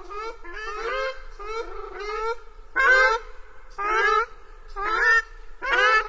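Ruddy shelduck honking, a series of calls at about one a second. The calls grow louder from about three seconds in.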